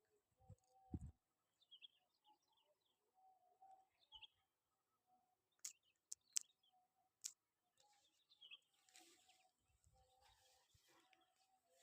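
Faint bird chirps, short and scattered, with a few sharp clicks near the middle.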